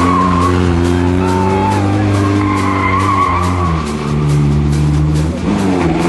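Background music with a steady beat and held low notes that change pitch in steps.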